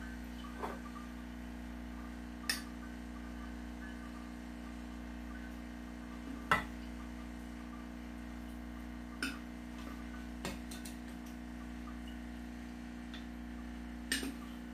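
A metal spoon clinking against a glass beaker while wet silver crystals are scraped out into a filter funnel: about six sharp clicks, spaced a second or more apart, the loudest about halfway through. A steady low hum runs underneath.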